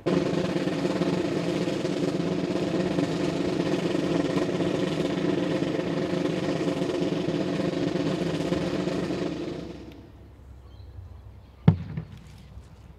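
Parade band music, loud and steady, stopping after about nine and a half seconds. A single sharp knock follows near the end.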